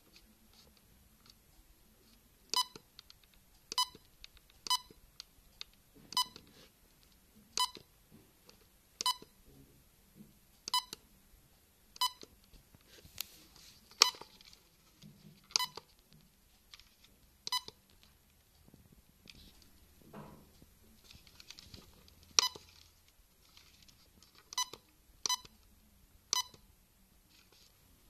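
LEGO Mindstorms EV3 brick's built-in speaker giving a short beep at each button press while its LeJOS menu is navigated: about fifteen brief, identical beeps at uneven intervals of one to two seconds.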